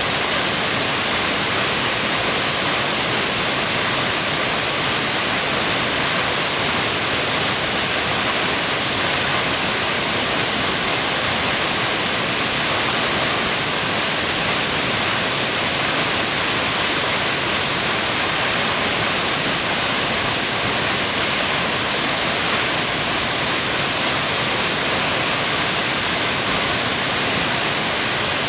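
Waterfall: a steady rush of falling water that keeps an even level throughout.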